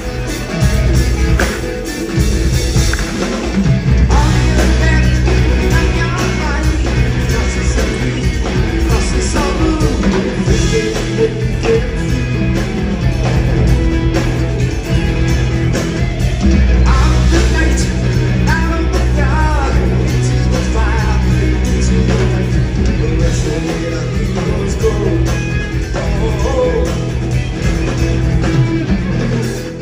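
A live progressive rock band playing loudly through an instrumental passage, with electric guitar over a heavy low end.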